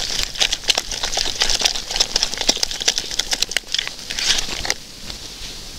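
Hands kneading and squeezing a wet dough of wheat flour and moss in a plastic tub: a rapid run of squelching, crackling clicks that dies away about three-quarters of the way through.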